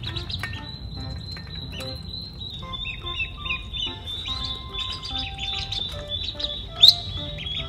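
Ducklings peeping over and over, a stream of short high calls that fall in pitch, with one sharp, louder sound near the end.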